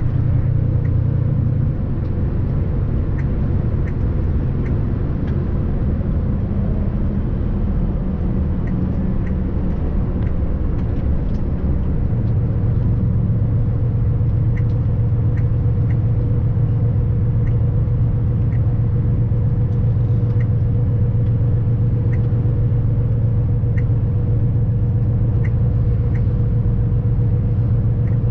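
A vehicle's engine and road noise heard from inside the cab while driving: a steady low drone with a constant hum above it, the engine note shifting about twelve seconds in.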